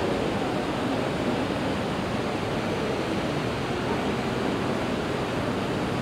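Steady rushing noise of the room ambience around an aquarium tank, even throughout with no distinct events.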